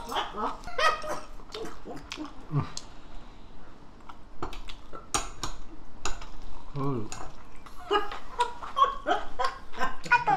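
Short bits of talk and laughter at a meal table, with sharp clicks of spoons and chopsticks against bowls and plastic containers.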